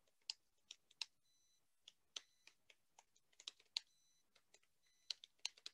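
Faint computer keyboard keystrokes: scattered, uneven clicks as a short sentence is typed.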